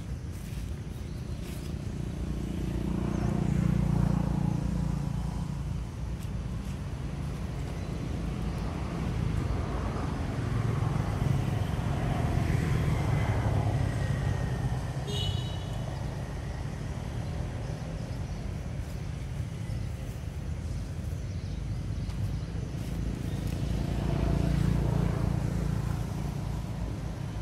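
Low traffic rumble of motor vehicles passing, swelling and fading about three times. A brief high chirp sounds once about halfway through.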